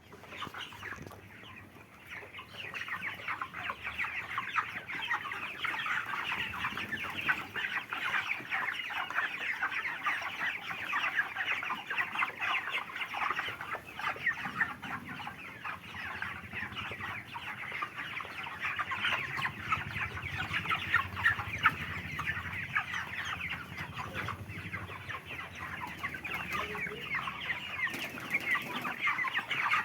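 A large flock of broiler chickens in a poultry house, a dense, continuous chorus of overlapping clucks and chirps, filling in after about two seconds.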